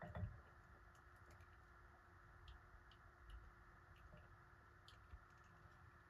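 Near silence: faint scattered clicks and light taps, with one louder knock near the start, over a low steady hum. These are typical of small parts and wiring being handled by hand.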